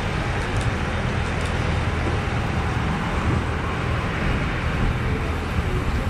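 Steady engine drone with a constant low hum under an even hiss, unchanging throughout.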